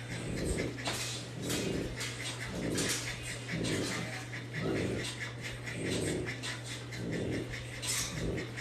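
A dog making low, repeated sounds about once a second, over a steady low hum.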